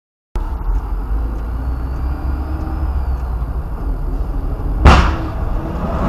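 Car driving, heard from inside the cabin as a steady low road and engine rumble that starts abruptly a moment in. About five seconds in there is one sharp, loud bang.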